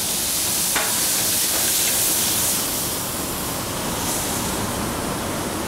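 White wine hitting a very hot sauté pan of diced tomatoes in olive oil: a steady, loud hiss and sizzle as the wine flashes to steam while the pan is deglazed. It eases a little after about three seconds.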